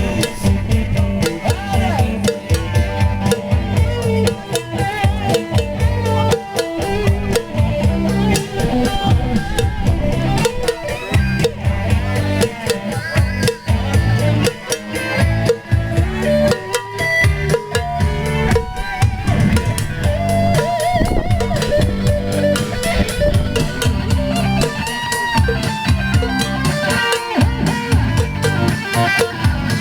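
Rock music with guitar and drums playing without a break.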